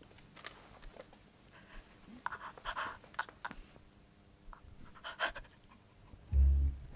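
Soft rustling of clothing and a rolled paper during a close embrace, with quiet tearful breaths and one short, louder breath about five seconds in. Near the end, plucked guitar music comes in over a deep bass.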